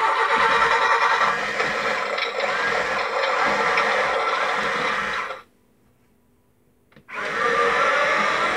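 Talking Tow Mater money box playing a loud, buzzy, machine-like sound effect through its small speaker. It cuts off suddenly about five seconds in and starts again about a second and a half later.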